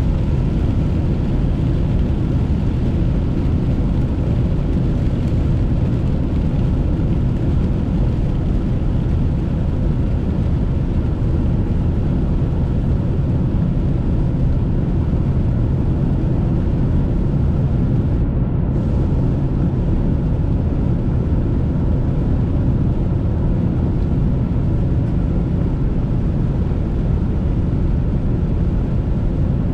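Steady low drone of a car driving at highway speed, heard from inside the cabin: engine and tyre noise on a wet road, unchanging throughout.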